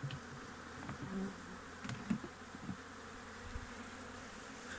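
Honeybees buzzing around an open hive, with a few bees passing close in short, rising and falling buzzes over a steady background hum.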